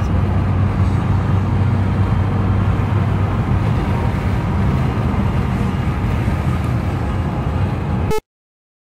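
Car driving, heard from inside the cabin: a steady low drone of engine and road noise. It cuts off abruptly about eight seconds in.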